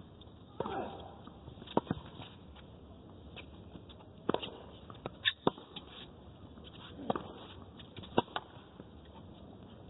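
Tennis rally on a hard court: racquet strikes and ball bounces every second or so, heard through broadcast audio, with a player's grunt on a shot about half a second in.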